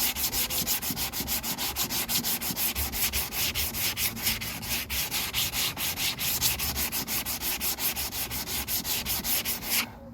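Sandpaper rubbing over hardened body filler on a car bumper in fast, even back-and-forth strokes, several a second, stopping abruptly just before the end.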